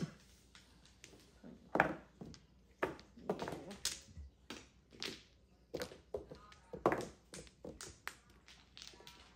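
Mahjong tiles clacking on a tabletop as players draw and discard: a string of sharp, irregular clicks and knocks, with a few louder clacks.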